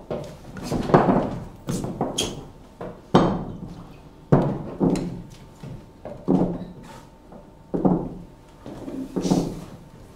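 A series of knocks and thumps, irregularly spaced about a second apart, each one ringing on briefly in the hall.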